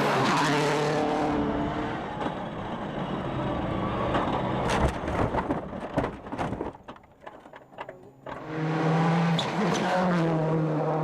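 World Rally Car engine running hard at high revs. Partway through come a cluster of sharp clicks and knocks and a brief drop in level, and the engine comes back at a steady high pitch near the end.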